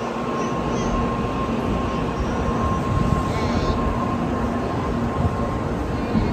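Shinkansen bullet train pulling slowly out of the station, a steady rumble with a steady electric hum.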